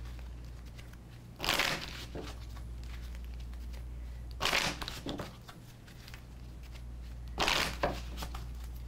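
A person breathing close to a clip-on microphone: three short, noisy breaths about three seconds apart, over a steady low hum.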